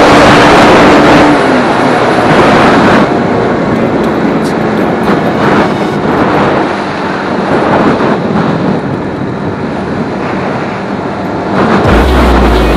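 Wind rushing over a bike-mounted action camera's microphone as a Honda RS125 motorcycle rides along, with its single-cylinder engine running underneath and a steady engine tone in the first second or so. The rush is loudest in the first three seconds, then eases.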